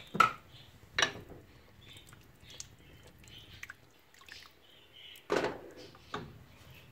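Aluminium cooking pot handled on the gas stove: about four sharp metal clinks and knocks, two near the start and two, the louder, near the end.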